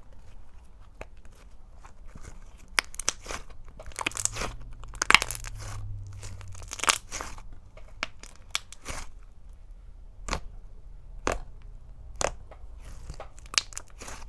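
Thick and glossy slime being pressed and played with up close, giving irregular clicks and wet pops. They come thickest in the middle, then a few sharp single pops about a second apart toward the end.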